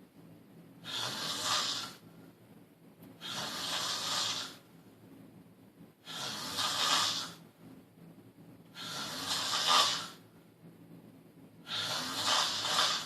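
A sleeping man snoring: five loud, rasping snores about two and a half seconds apart, each lasting a little over a second.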